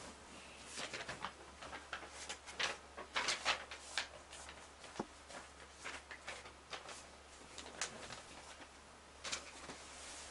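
Sheet of paper being handled and folded by hand: irregular crinkling and rustling with soft bumps, busiest about two to four seconds in.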